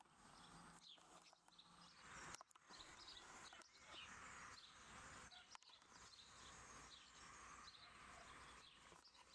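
Near-quiet outdoor ambience with small birds chirping faintly in the background.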